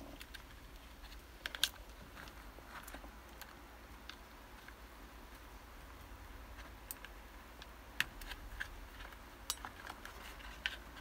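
Faint, scattered clicks and light taps from hands handling insulated hookup wires over a plastic box, a few irregular clicks spread through the span.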